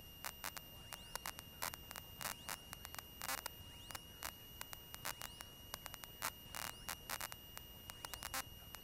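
Faint electrical static in the aircraft's intercom audio feed: irregular crackles and clicks over a steady high-pitched whine. The engine itself is not heard.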